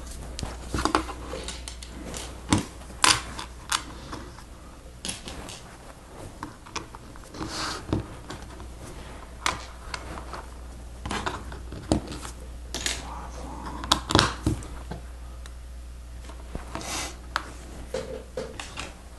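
Plastic Lego Technic pieces being handled and pressed together: irregular sharp clicks and clacks, with soft rummaging between them.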